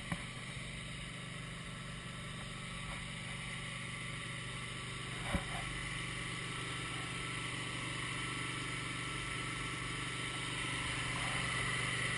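Wood-Mizer LT15 sawmill's engine running steadily at idle, getting a little louder near the end, with a single sharp knock about five seconds in.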